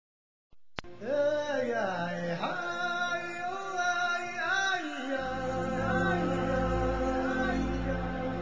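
Opening music: after a brief click, a voice sings a melody with sliding, bending notes. About halfway through, a low sustained bass joins underneath.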